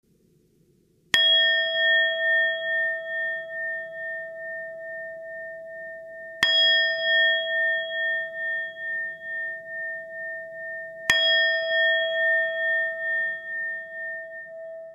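A struck bell rung three times, about five seconds apart, each strike left to ring out with a long, slowly wavering tone.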